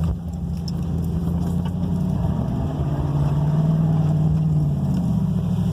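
1999 Ford F-150 engine pulling through mud, heard from inside the truck. Its note rises a little past two seconds in, holds, then drops back near the end.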